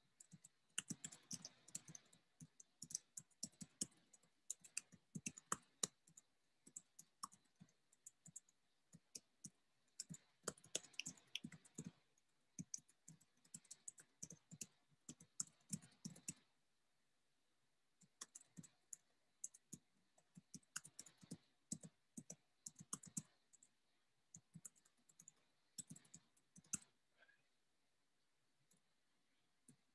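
Typing on a computer keyboard: bursts of rapid, irregular key clicks, stopping briefly a little past the middle and again near the end.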